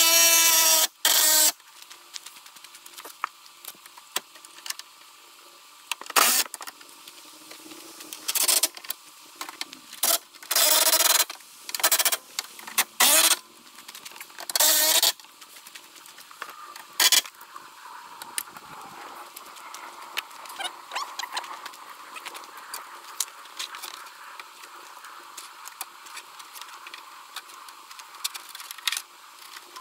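Cordless power tool running bumper bolts in, in a string of short bursts, the first winding up in pitch. After about 17 seconds the bursts stop and only faint clicks and handling sounds remain.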